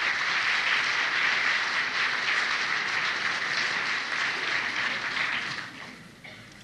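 Concert-hall audience applauding, dying away about six seconds in, heard on an old cassette recording.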